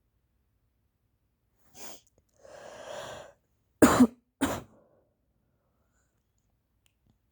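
A person with a stuffy head cold catching their breath in two ragged inhales, then sneezing twice in quick succession, the two sneezes loud and sharp, a little over half a second apart.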